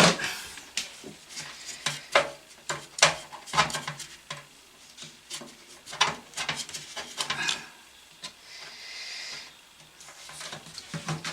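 Scraping and rubbing with scattered clicks as dust is cleaned out of an old desktop PC's case.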